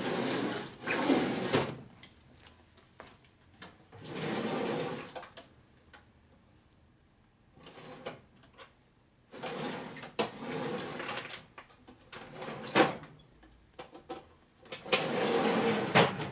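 Metal shop drawers sliding open and shut, with tools being rummaged, in several rasping bursts of a second or so with quiet gaps between and a sharp clack about three-quarters of the way through.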